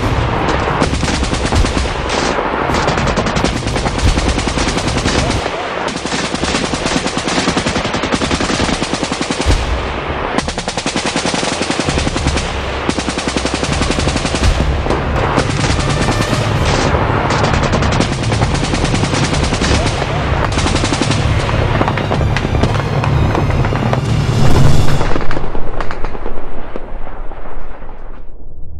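Automatic-weapon gunfire in rapid, near-continuous volleys, with music beneath. It is loudest a few seconds before the end, then fades away.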